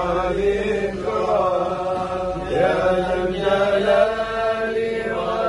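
Men's voices chanting an Arabic devotional nasheed (dhikr) in long, drawn-out melodic notes that rise and fall, with no break.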